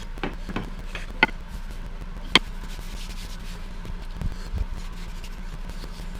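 Workbench handling noises: a few sharp clicks and knocks, the loudest about a second and two seconds in, then a couple of dull thumps, over a steady low hum.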